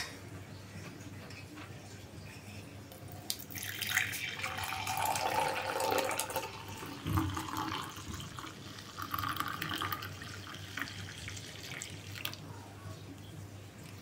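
Milk poured from a steel pot into a glass mug: a splashing, gurgling pour that starts about three seconds in and trails off near the end.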